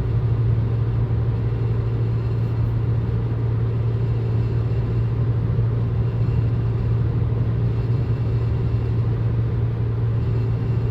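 BMW 335i cruising at steady highway speed, heard from inside the cabin as a steady low drone, with the intermittent rattle that the owner suspects comes from the downpipe or exhaust, which had just been tightened.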